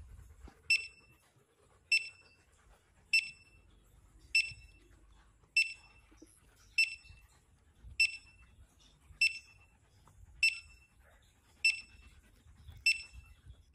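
Handheld metal detector giving short, high-pitched beeps at a steady pace, about one every 1.2 seconds, while its coil is swept over the ground.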